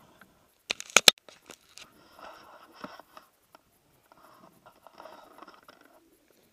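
Handling noise on a pole-mounted camera: a few sharp clicks about a second in, then rustling and scraping of gloves and jacket fabric against it.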